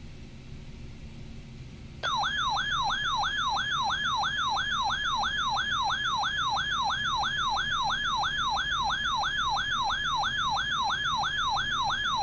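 Weather radio receiver's alert alarm sounding for an incoming severe thunderstorm warning: a loud warbling siren tone, sweeping up and down about three times a second. It starts about two seconds in after faint hiss and hum, and cuts off abruptly near the end.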